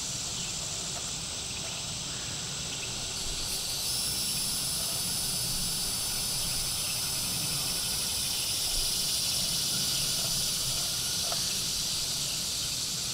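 Steady high-pitched chirring of insects, stepping up a little about four seconds in.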